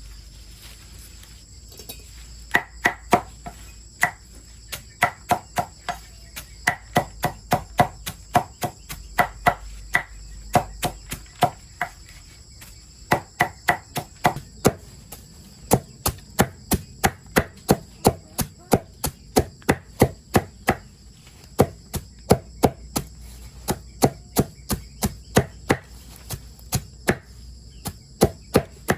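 Rapid chopping with a blade: sharp strokes about two to three a second, in runs with short pauses, starting about two seconds in. A steady high insect drone runs underneath.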